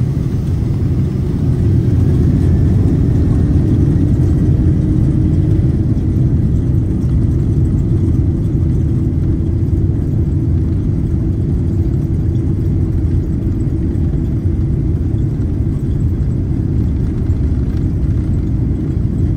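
Jet airliner cabin noise: the engines and airflow make a loud, steady low rumble that swells a little over the first couple of seconds.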